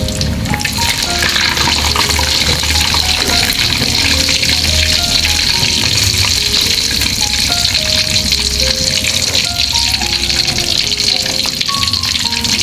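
Food sizzling and crackling as it fries in hot oil in a pan, starting about half a second in, with background music playing under it.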